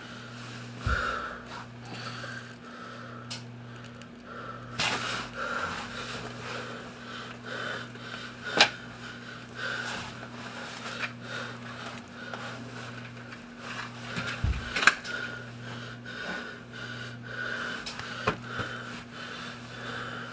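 A trapped man's laboured, wheezing breathing, rising and falling every second or two over a low steady hum, with a few sharp knocks or shuffles.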